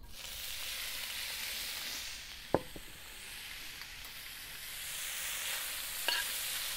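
Diced ham hitting hot oil in a wok and frying with a steady sizzle, which sets in as the ham is poured in. A sharp tap about two and a half seconds in, and two lighter clicks near the end.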